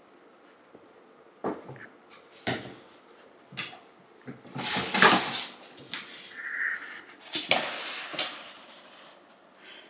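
Two cats wrestling on a wooden floor: a string of irregular thumps and scuffling, the loudest about five seconds in, with a brief high squeak a little after the middle.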